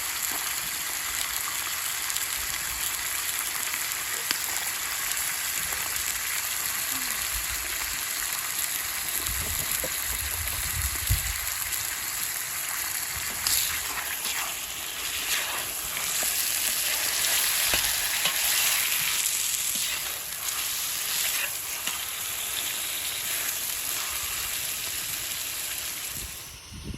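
Food frying and sizzling in oil in a cast-iron cauldron over an open fire, with a few scrapes of stirring in the middle. The sizzle is steady, and it drops off sharply near the end.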